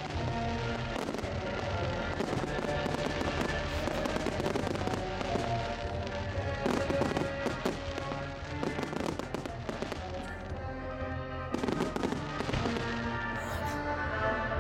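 Fireworks bursting and crackling over music played for the display, with the crackle thickest in two spells, about halfway through and near the end.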